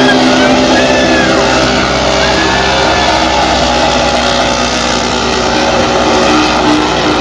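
Racing swamp buggy engine running hard at high revs while the buggy ploughs through the water-filled track.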